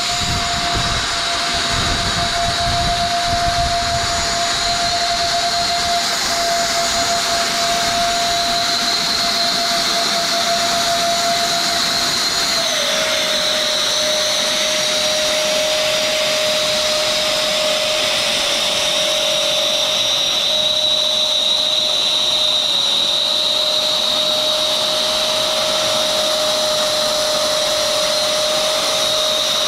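Wall-climbing robot's fan running with a steady high whine over a rushing hiss, dropping slightly in pitch about twelve seconds in.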